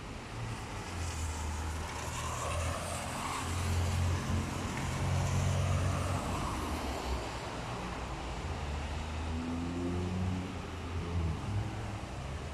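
Cars driving past on a rain-soaked street, their tyres hissing through the water, loudest about four to six seconds in. Around ten seconds in, an engine rises in pitch as a vehicle speeds up.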